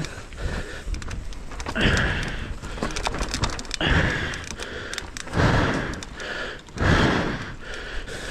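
A mountain biker breathing hard while riding, with four loud, heavy breaths about every one and a half to two seconds. Under them the bike's parts rattle and click over the rocky dirt trail.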